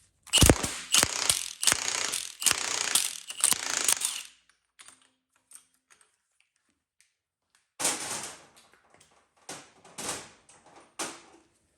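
Impact wrench hammering in short bursts on a gear puller's forcing screw, working the crankshaft timing sprocket off an LT1 V8. A few lighter metallic clatters follow a few seconds later.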